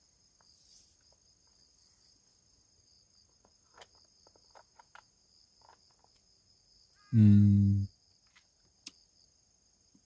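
Crickets trilling steadily and faintly, with a few soft clicks. A short hummed voice sound about seven seconds in is the loudest thing.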